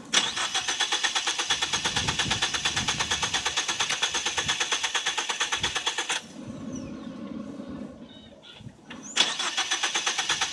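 2014 Ford Focus starter cranking the engine over in a fast, even rhythm without it firing. There are two tries, the first of about six seconds, then a short pause, then cranking again. It is a no-start.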